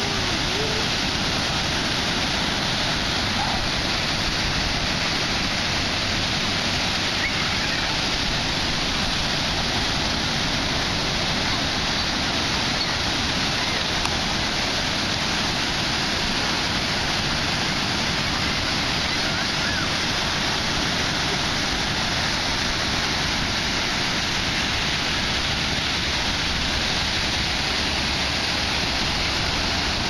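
Ocean surf breaking and washing up the beach: a steady, unbroken wash of waves.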